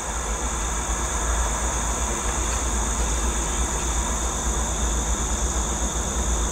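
Low rumble of a distant approaching train, growing slowly louder, with insects droning high and steady over it.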